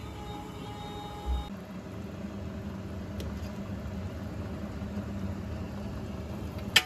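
A large stainless pot of beef bone broth boiling steadily. A single sharp click comes near the end.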